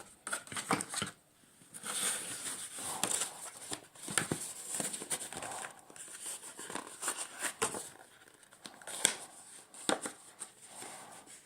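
Packaging being handled and unwrapped: crinkling and rustling, with scattered sharp clicks and knocks.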